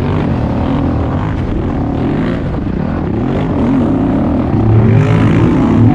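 Racing ATV engine revving hard, its pitch rising and falling again and again as the rider works the throttle and shifts on the trail.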